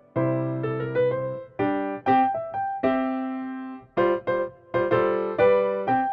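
Background piano music: a light tune of chords and single notes struck in turn, each fading before the next.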